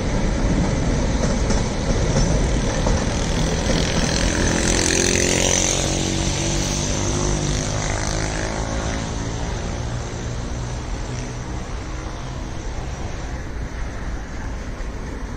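Empty gondola freight wagons rolling away along the track, their rumble and rattle slowly fading as the end of the train recedes. A falling whine passes about four to nine seconds in.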